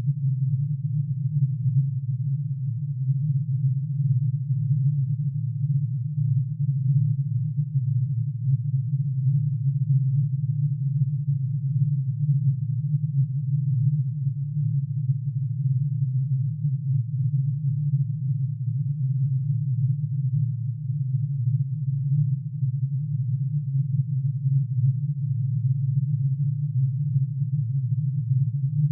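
Synthesized sonification of plutonium's atomic emission spectrum: many sine tones, one for each spectral line, summed into a dense, steady low drone with a slight fluttering beat and no change in pitch.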